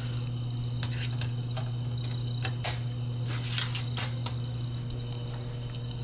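Plastic clicking and clatter from a laptop's optical drive tray as a driver disc is loaded and the tray pushed shut: a handful of sharp clicks, bunched together about three and a half to four and a half seconds in. A steady low hum runs underneath.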